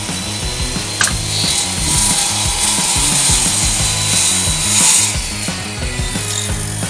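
Power-tool noise on siding boards: a hiss that swells through the middle, with a sharp crack about a second in, over background music with a steady bass line.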